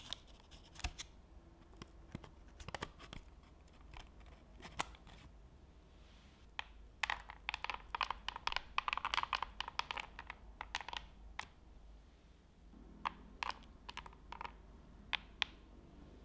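Chocolate chips sprinkled by hand onto digestive biscuits in a parchment-lined loaf tin, making a dense patter of small ticks for a few seconds in the middle. Before it come scattered clicks and paper crinkles as the biscuits are set into the baking paper, and a few stray clicks follow.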